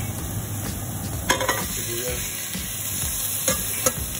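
Garlic sizzling in hot oil in a stainless steel pot, with a few sharp clinks against the pot, about a second in and twice near the end, as sliced onion, ginger and bay leaves are added.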